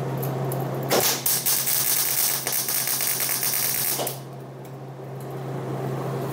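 Wire-feed (MIG) welder arc crackling for about three seconds, starting about a second in, as a tack weld is laid on sheet steel. A steady low hum runs underneath throughout.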